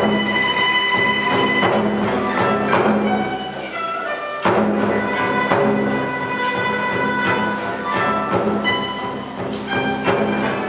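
Chinese traditional ensemble music: a dizi bamboo flute holding long high notes over plucked guzheng zithers, with keyboard accompaniment and a repeating low note.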